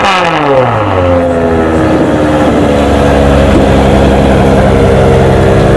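Ferrari 599 GTO's V12 engine, its revs falling away from a blip and settling into a steady idle about a second and a half in.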